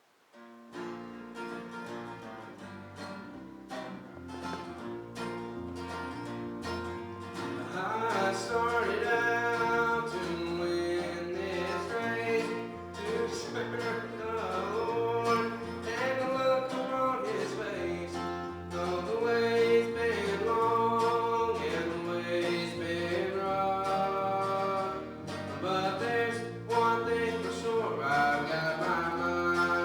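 Country-style music with guitar, fading in about a second in and growing louder over the first several seconds, over a stepping bass line.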